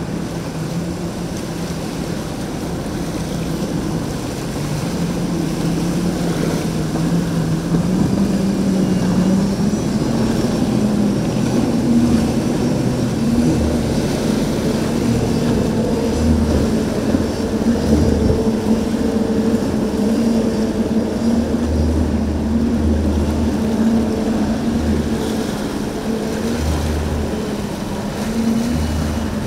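Motorboat engines running, a steady hum that climbs in pitch over a few seconds as the throttle opens and then holds. Low gusty rumbles, from wind on the microphone, come and go in the second half.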